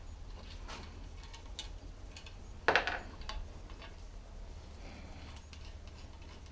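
Scattered light clicks and taps of tools and metal parts being handled while motorcycle handlebars are fitted, with one louder clatter nearly three seconds in, over a low steady hum.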